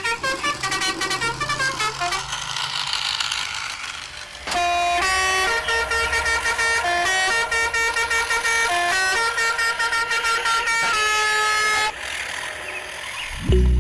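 A loud horn playing a tune of held notes that step up and down in pitch, with a stretch of hiss a few seconds in.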